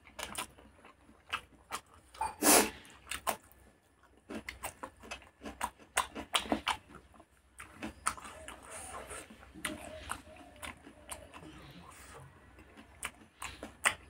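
Close-miked eating sounds: wet chewing of a mouthful of rice and pork curry, with many short lip smacks and mouth clicks, one louder smack about two and a half seconds in, and fingers squishing rice on a banana leaf.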